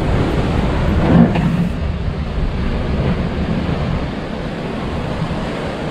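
Storm waves crashing over a sea wall, with a heavier hit about a second in, then a steady rush of seawater and foam.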